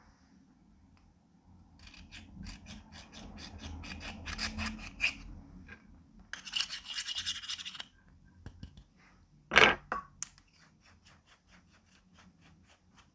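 Clear slime being squished and kneaded by hand, giving fast runs of sticky clicks and crackles, with one louder pop about two-thirds of the way through.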